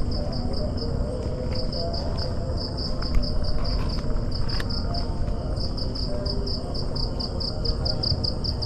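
Cricket chirping in a steady pulsed rhythm, about five high chirps a second, over a low rumble of movement.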